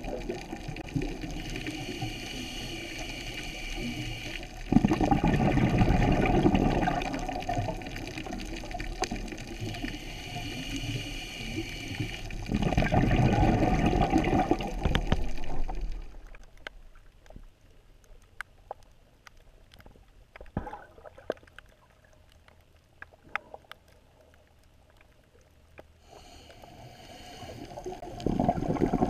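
Scuba diver breathing through a regulator, heard through a GoPro's underwater housing: each inhalation hisses, and two exhalations come as loud bursts of bubbles about five and thirteen seconds in. Then comes a quieter stretch of about ten seconds with scattered sharp clicks, and another breath starts near the end.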